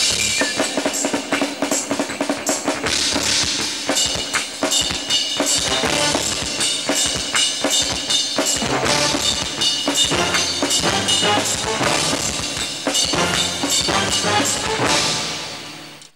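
Drum kit played in a fast, dense pattern with bass drum, snare and cymbals over music with held tones. The playing falls away sharply near the end.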